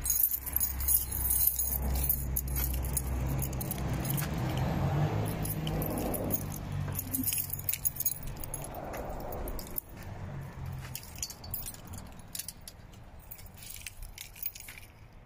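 Keys jangling and clinking in small irregular bursts as a person walks, over a low engine-like hum that fades out about ten seconds in.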